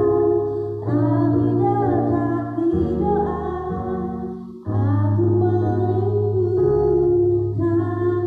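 A woman singing a slow song into a microphone over electric keyboard accompaniment, amplified through a PA, with a short break between phrases about halfway through.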